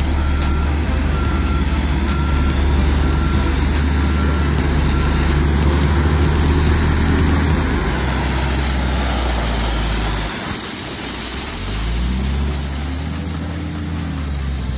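Dump truck engine running with a deep, steady rumble while crushed gravel pours off the raised bed through the open tailgate with a continuous hiss. A backup alarm beeps about twice a second for the first five seconds or so. Near the end the engine note eases, then rises and falls again.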